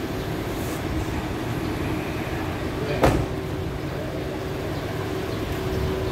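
Truck engine running steadily, with a single sharp clank about three seconds in.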